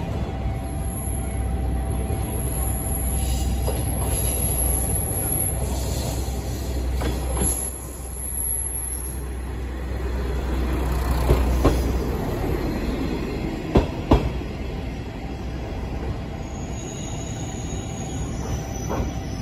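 A local electric train passing close by: a low rumble of the cars with wheels squealing and clacking over rail joints. The rumble dies away about two-thirds of the way through, with a few sharp clacks as the last wheels go by.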